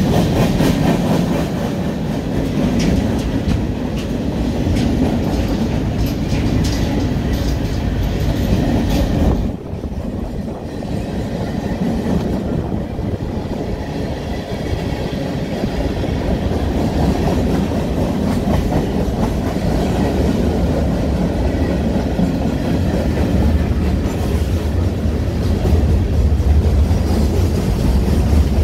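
A freight train's cars rolling past close by, steel wheels clacking over the rail joints in a steady rumble. The sound drops suddenly about nine and a half seconds in, then carries on.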